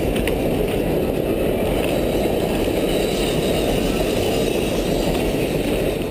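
Steady low rush of wind and road noise from riding, mixed with the rumble of a double-deck passenger train running past.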